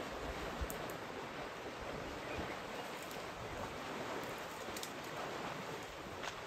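Steady rush of water sloshing and splashing as a herd of African elephants wades through a shallow waterhole, with a few faint ticks.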